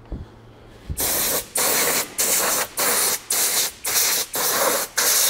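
Cleaning fluid sprayed in short hissing bursts, about two a second, washing dirt out of an automatic transmission's oil pan.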